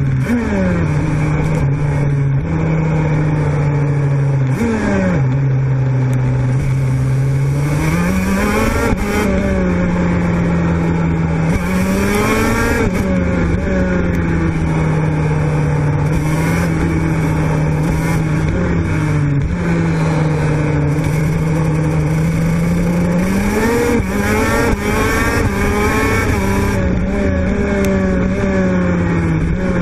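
TM 125 cc two-stroke kart engine heard onboard at racing speed, its note climbing under throttle and dropping away again and again through the lap. The engines of other karts running close by rise and fall over it, most clearly a few times in the middle and near the end.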